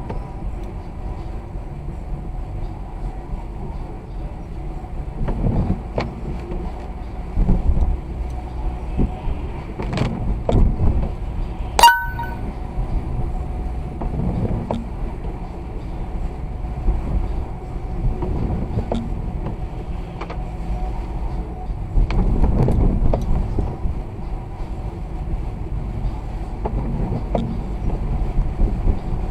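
A car driving on snowy roads: steady low road and engine rumble with occasional knocks and bumps. About 12 seconds in there is one sharp click that rings briefly.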